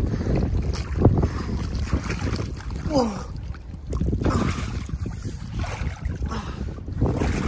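Water splashing and sloshing as a swimmer breaststrokes through a hole cut in lake ice, with wind rumbling on the microphone. A few short voiced sounds from the swimmer come in about three and four seconds in.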